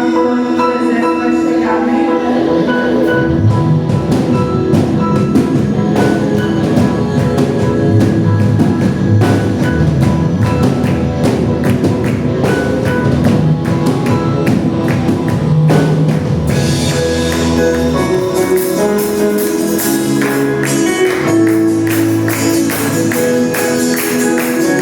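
Instrumental passage of a gospel worship song, band music with a steady percussive beat. Bass comes in about two seconds in.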